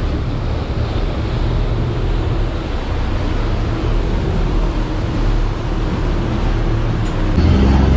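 A river tourist boat's engine running steadily under the rush of its churning wake, with wind on the microphone. Near the end the sound switches abruptly to a louder, steadier low engine hum.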